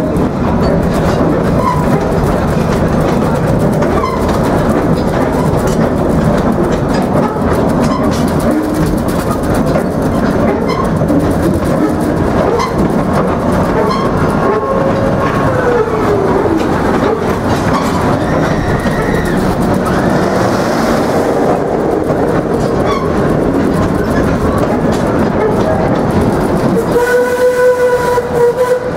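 Steam train running, with a steady rumble and clickety-clack of the wheels on the rails. Near the end the locomotive's steam whistle sounds once for about two seconds.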